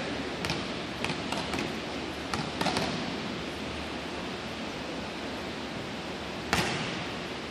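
Volleyball serve: a hand slaps the ball once, sharply, about six and a half seconds in. A few softer taps come earlier, over a steady background hiss.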